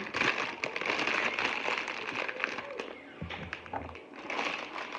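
Clear plastic produce bag of mini sweet bell peppers crinkling and rustling as it is handled, with many small sharp crackles.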